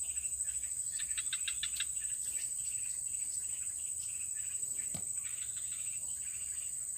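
Steady high-pitched insect chorus, with a quick run of short chirps about a second in and a single click about five seconds in.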